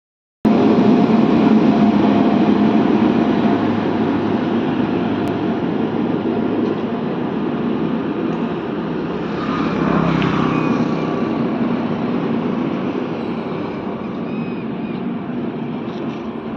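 Indian Railways electric locomotive and its passenger coaches rolling past below, a loud steady rumble of wheels on track that slowly fades as the train draws away.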